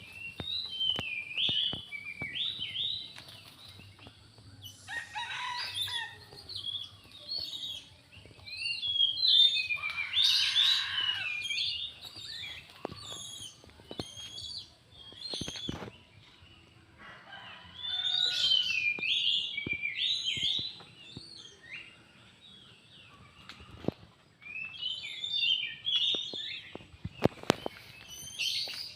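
Small birds chirping and twittering in repeated bouts of quick high notes, with short pauses between bouts and scattered light clicks. A louder, noisier burst comes about ten seconds in.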